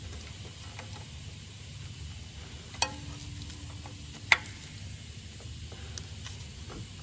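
Two sharp metallic clicks about a second and a half apart, from a spanner working the high-pressure fuel pipe union nuts on a Renault 1.5 dCi engine, over a low steady hum.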